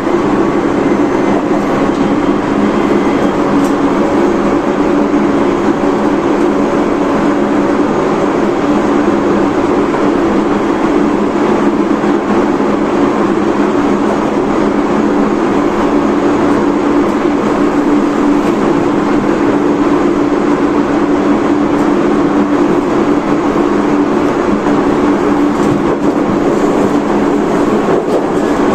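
Tobu 30000 series electric train with a Hitachi IGBT VVVF inverter, heard from inside the car running at a steady speed: an even rumble of wheels on rail with a constant low hum, no change in pitch or level throughout.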